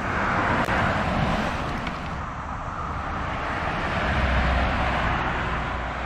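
Cars passing on a paved road: steady tyre-and-engine noise that starts abruptly, with a deeper rumble swelling about four seconds in as another vehicle goes by.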